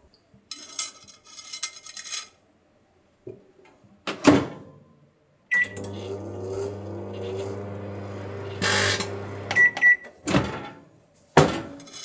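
Samsung microwave oven with a loop of carbon-fibre filament inside. Early on there is a rustle of the filament being handled, then a door clunk. A beep sets off the oven's steady low hum for about four seconds, with a brief loud burst of noise partway through. Two beeps stop it, and two more door clunks follow near the end.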